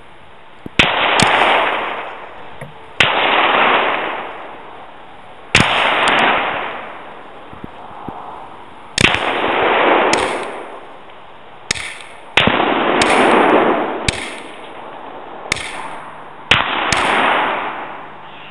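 A series of six sharp cracks, like gunshots, coming at uneven gaps of two to four seconds. Each crack is followed by a rush of noise that swells and then fades over a second or two, with fainter clicks in between.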